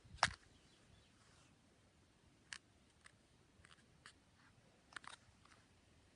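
Quiet room with irregular, sharp knocks and ticks: one louder knock just after the start, then about half a dozen fainter ones spread over the rest, including a quick pair around the five-second mark. These are the unexplained knocking noises that happen only on the upper floor of the house.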